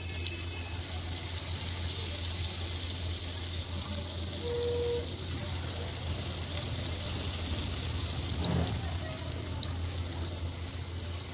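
Spoonfuls of dhuska batter (ground rice and urad dal) frying in hot oil in a steel kadhai: a steady sizzle, with a couple of light clicks late on and a steady low hum underneath.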